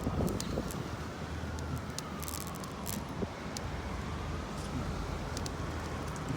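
A distant siren wailing, its pitch slowly falling and then rising again, over a steady rumble of wind on the microphone and a few sharp ticks.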